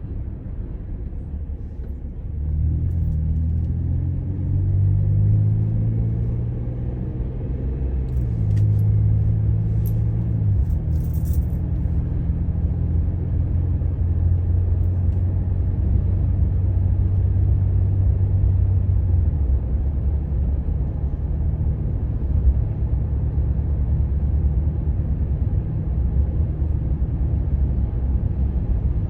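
Car engine and road rumble heard while driving. The engine note picks up and rises about two and a half seconds in, holds steady as the car cruises, then eases off about two-thirds of the way through.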